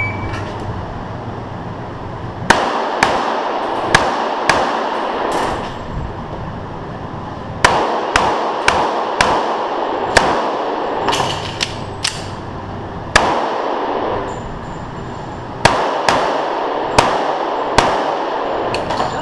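Springfield Armory 1911 pistol firing .45 ACP in quick strings of shots about half a second apart, with pauses of one to two seconds between strings. There are about twenty shots, each ringing with the echo of an indoor range.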